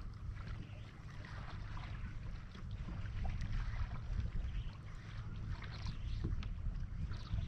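Water lapping against the hull of a drifting fishing boat, over a steady low wind rumble on the microphone.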